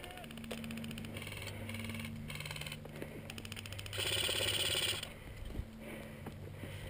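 Airsoft guns firing full-auto bursts: fast strings of clicks, a few fainter bursts followed by a louder burst of about a second roughly four seconds in.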